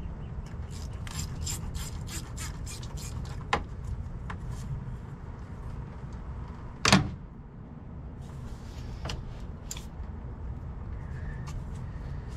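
A 1/4-inch ratchet clicking quickly, about five clicks a second, for a couple of seconds, then a single sharp metal knock about seven seconds in, over a low steady rumble.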